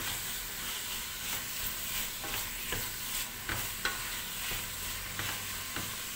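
Chopped green beans, zucchini and spinach sizzling in a stainless steel pot as a wooden spoon stirs them. The spoon scrapes or taps against the pot every third to half second over the steady hiss of frying.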